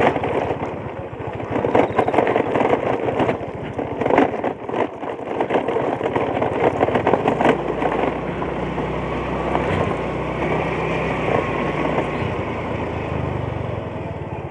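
Motor scooter engine running while it is ridden over a rough, stony dirt road, with frequent knocks and rattles from the bumps. After about seven seconds the knocking dies away and the engine runs on steadily as the road turns smooth.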